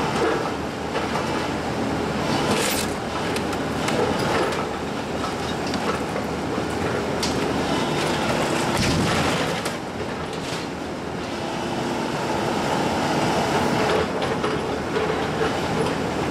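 Hyundai tracked excavator's diesel engine running under load as it tears into a wood-frame, vinyl-sided house, with repeated cracks and crashes of splintering timber and siding.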